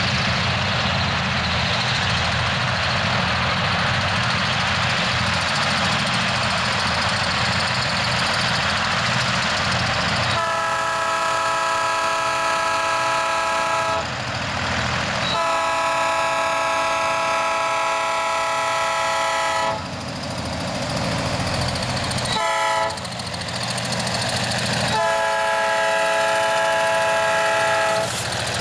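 Heavy diesel locomotives' air horn sounding four chord-like blasts, long, long, short, long: the grade-crossing signal as the lead unit nears a road crossing. For the first ten seconds there is only a steady train rumble, and the rumble carries on under the horn.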